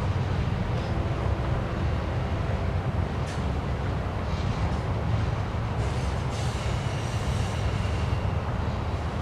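BNSF diesel freight train rumbling steadily on the line, with a faint high-pitched squeal from about six seconds in.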